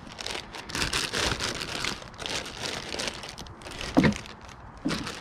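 Clear plastic bag crinkling as the wrapped backrest pad is handled, followed by two sharp knocks about a second apart near the end as the backrest is set against the motorcycle's rear mounting plate.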